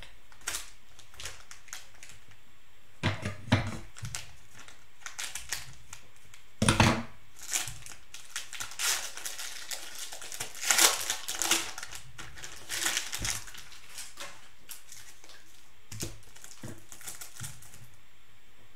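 Plastic cellophane wrapper of a trading-card pack crinkling and tearing as it is handled and ripped open, in irregular bursts of crackle. The loudest bursts come about seven and eleven seconds in.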